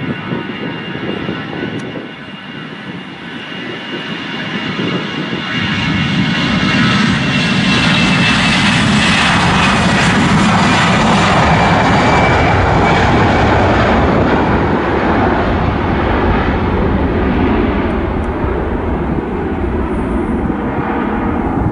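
Airbus A320's twin jet engines at takeoff power during the takeoff roll: a loud rushing noise with a high fan whine that slowly drops in pitch as the aircraft passes. It grows louder over the first several seconds, is loudest around the middle, then eases off slightly as the aircraft moves away.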